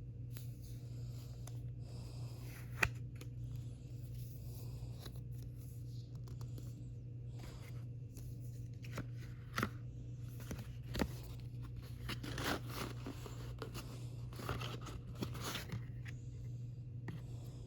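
Album packaging being handled and opened: wrapping cut and torn, with rustling and a few sharp clicks, over a steady low hum.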